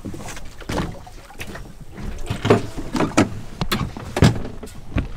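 Water slapping against the side of a drifting boat, with irregular knocks and splashes, several louder ones in the second half.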